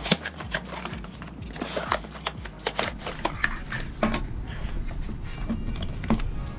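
Cardboard and plastic packaging being handled: soft rustling with a run of sharp clicks and taps as the box and the cardboard inner tray are moved about and set down.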